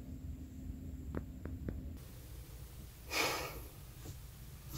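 Quiet room tone with a low hum. Three faint short pips come a little after a second in, then a single audible breath about three seconds in.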